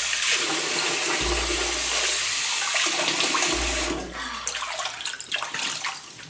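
Tap water running into a sink while a face is rinsed with it; the flow stops about four seconds in, leaving quieter scattered splashes and drips.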